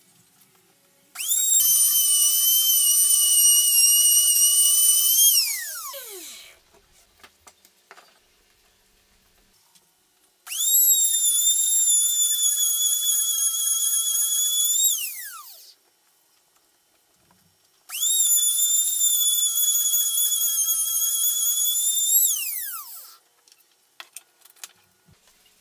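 Router held in a plywood mortising jig, run three times. Each run is a steady high-pitched whine of a few seconds as it cuts a slot mortise in a pine board, then winds down in falling pitch after switch-off. Small clicks and knocks of wood being handled between runs.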